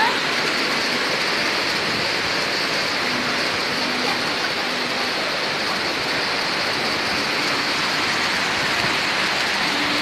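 Water rushing and cascading over the rock lip at the top of Nohkalikai Falls, a steady, even rushing.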